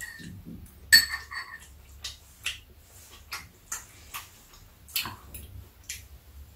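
Metal chopsticks and spoons clinking and tapping against ceramic bowls during a meal: scattered light clicks, about ten in all, the sharpest about a second in with a brief ring.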